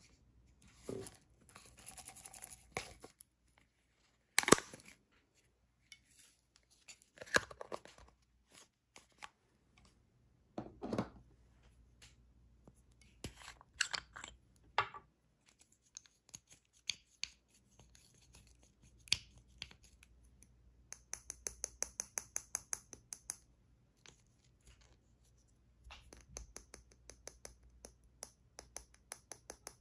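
Small plastic cosmetic jars of glitter and eyeshadow pigment handled, opened and tapped: scattered light clicks and taps, with a quick even run of ticks about two-thirds of the way through and another near the end as glitter is shaken out.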